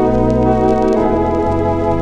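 Organ music: sustained chords held over a low bass line whose note changes twice.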